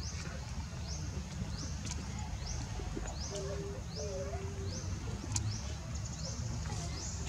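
Outdoor ambience: a short, high rising chirp repeated evenly about every 0.7 seconds over a steady low rumble, with a brief lower call about halfway through and a few sharp clicks.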